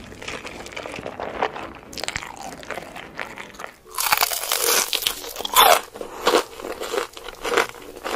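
Close-miked eating sounds: soft chewing and slurping of black bean noodles, then, about four seconds in, loud crunching bites into Hot Cheetos-crusted fried chicken followed by crunchy chewing.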